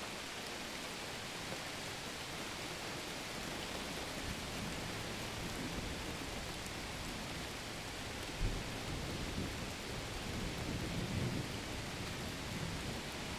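Steady hiss of rain, with low rumbles of thunder: a short one about eight and a half seconds in and a longer one a couple of seconds later.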